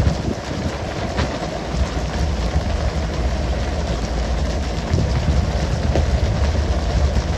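Fishing boat's engine rumbling under a steady rush of water spray and sea splash, with a few faint knocks on deck.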